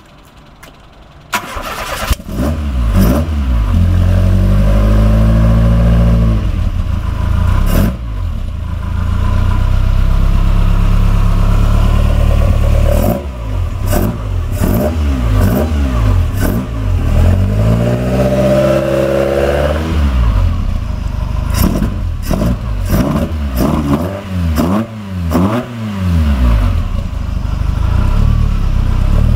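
1966 Ginetta G4's four-cylinder engine, fitted with twin sidedraught carburettors, starting about two seconds in and settling to idle. It is then revved repeatedly: a long rev rising and falling about two-thirds of the way through, and a quick run of short throttle blips near the end.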